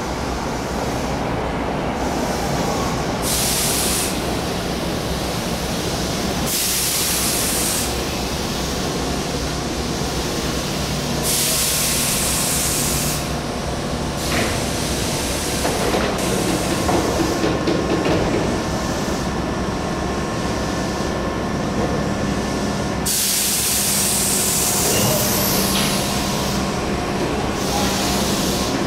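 Tobu 8000 series electric train at a station platform: a steady electrical hum with four short bursts of hissing air, the last and longest near the end.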